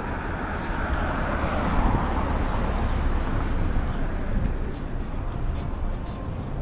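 City avenue traffic: a steady rumble of engines and tyres, with a vehicle passing close that swells up about two seconds in.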